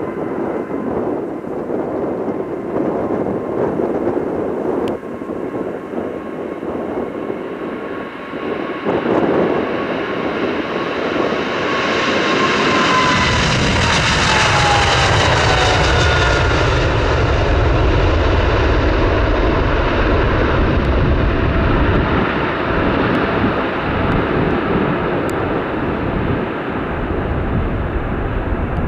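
Heavy jet airliner's engines at takeoff power passing close by: a whine drops in pitch about halfway through as the sound peaks, followed by a deep, lingering rumble as the jet moves away.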